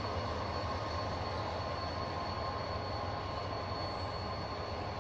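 Croatian Railways (HŽ) locomotive running steadily, a constant low rumble with a thin high-pitched whine over it that holds without change.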